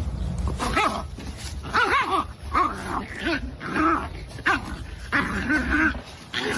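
A dog vocalizing in a string of about seven short whining calls, each wavering up and down in pitch.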